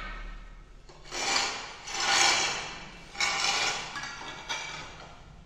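Pieces of white ceramic tile scraping and sliding across the floor as they are pushed into place: three scrapes, each under a second, with a fainter one near the end.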